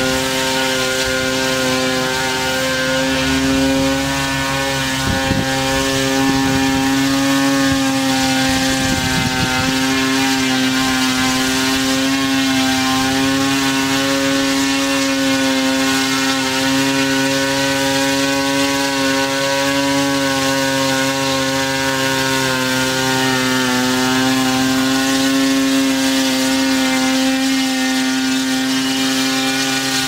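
Quadcopter drone's electric motors and propellers buzzing steadily as it flies, a constant hum whose pitch wavers slightly.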